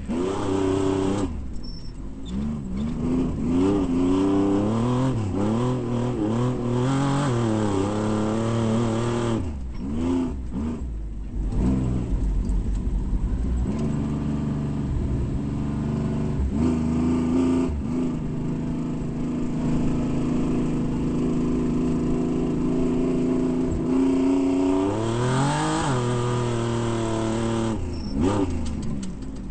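Off-road race vehicle's engine revving under load, its pitch rising and falling over and over as it accelerates and backs off, holding steadier for a stretch in the middle.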